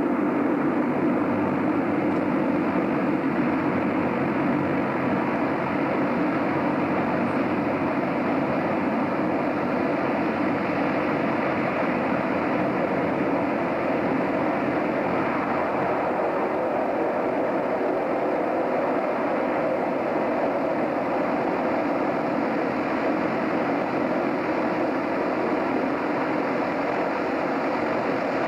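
A ferry boat's engine running steadily: a continuous, even drone with a faint steady hum.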